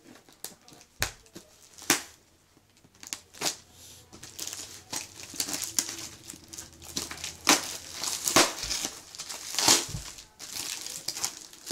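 Clear plastic bag wrapping a cardboard box crinkling as hands grip and pull it off. A few separate sharp crackles come first, then dense, continuous crinkling from about four seconds in, easing near the end.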